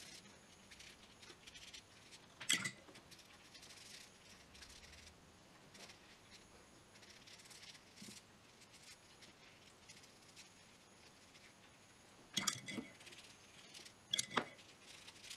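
Faint swishing of a paintbrush laying watercolour onto wet paper during the first few seconds, then quiet, broken by a sharp tap and, near the end, a few light knocks and taps from handling the brush and paper.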